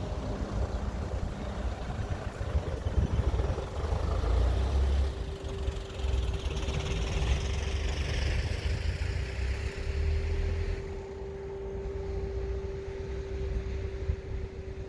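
Strong wind buffeting the microphone while a JR E353 series limited express train runs through a level crossing. Its running noise builds from about five seconds in and dies away around eleven seconds, over a steady hum.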